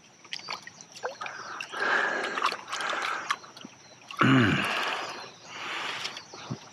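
Shallow pond water splashing, trickling and dripping, with scattered small clicks, as a freshly landed peacock bass is handled in the water. About four seconds in, a short vocal sound from the angler.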